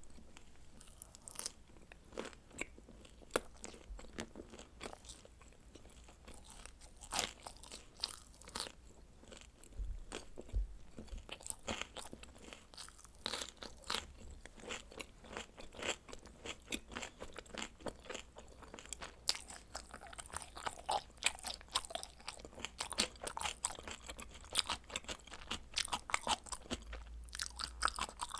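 A person chewing and crunching pizza: a quick, irregular run of crisp clicks and mouth sounds, thicker in the second half.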